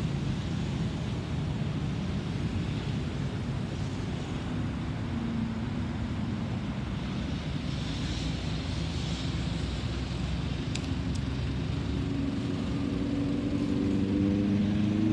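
Airbus A320neo with CFM LEAP-1A turbofan engines flying over at height: a steady low rumble that grows louder near the end, when a low humming tone comes in.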